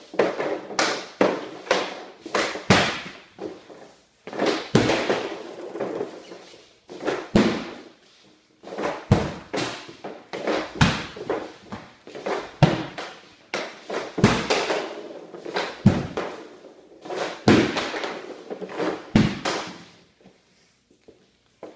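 A hockey player taking wrist shots one after another with an Easton V9E stick: each shot is a sharp clack of stick blade and puck on the shooting surface, with smaller scrapes and knocks of pucks around it. There are about ten shots, one every two seconds or so.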